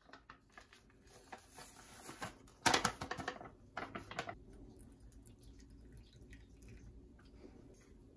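A biscuit-mix packet crinkles and rustles as it is handled and the dry mix is shaken out into a bowl, loudest about three seconds in. After that comes the quieter scrape and patter of a wooden spoon stirring the dry mix in the bowl.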